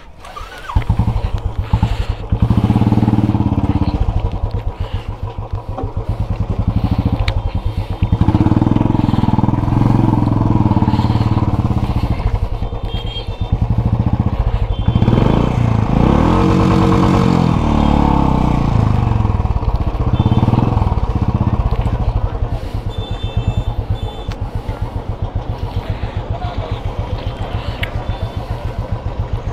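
Royal Enfield motorcycle engine catching about a second in, then running as the bike pulls away and rides slowly over dirt ground. The revs rise and fall several times, with one longer climb in pitch around the middle as it accelerates.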